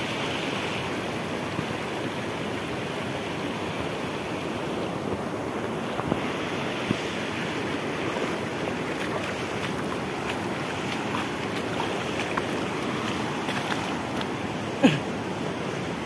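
Steady rushing of shallow river water flowing past, with a few light clicks and one sharper knock near the end.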